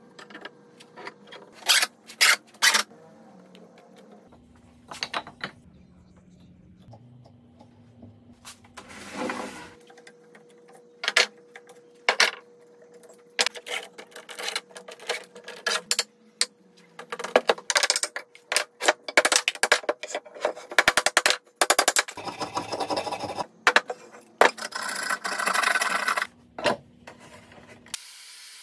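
Hardwood strips being laid together and steel bar clamps being slid and set during a glue-up: many sharp wooden and metal knocks, with short bursts of scraping about nine seconds in and twice more in the second half.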